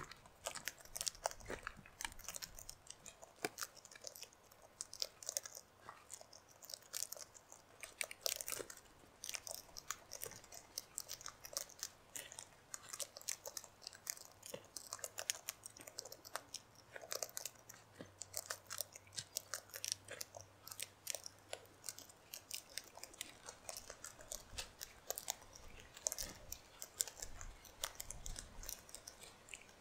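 Sulphur-crested cockatoos cracking and crunching seed in their beaks: a quick, irregular run of sharp cracks and crunches with no pause.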